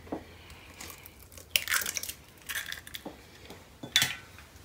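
A raw egg being broken open over a bowl: a few short, crunchy crackles of the shell being pulled apart, the sharpest near the end.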